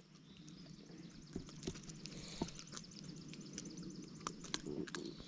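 Faint handling noise: scattered light clicks and rustles as a caught largemouth bass is held up and turned by hand, over a faint outdoor background.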